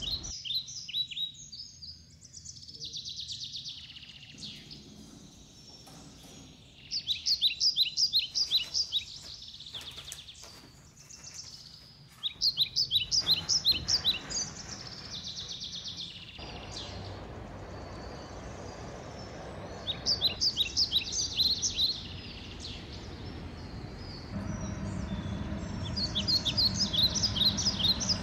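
A songbird singing short phrases of quick, high chirps, about five phrases a few seconds apart, over a low steady background rumble.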